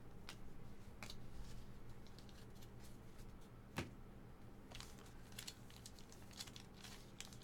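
Faint rustling and light clicks of foil trading card packs and cards being handled on a tabletop, with a sharper tap a little under 4 seconds in and a cluster of small ticks in the second half. A low steady hum sits underneath.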